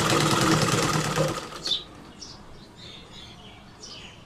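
Sewing machine stitching at a fast, even rate of needle strokes, then stopping about a second and a half in.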